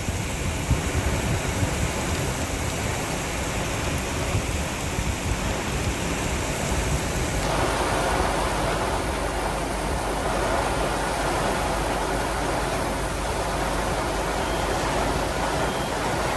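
Torrential rain and wind beating steadily on a car's roof and windscreen, heard from inside the car; the sound changes in tone about halfway through.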